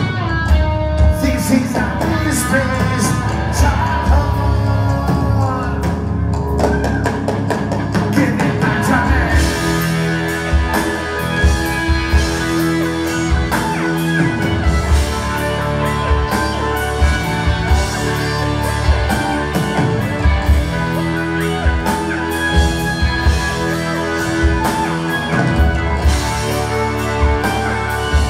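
Live rock band playing, with drums and electric guitar.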